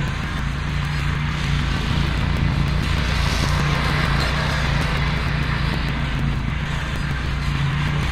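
Ventrac compact tractor's engine running steadily, with a constant mechanical hum and a broad rushing noise over it.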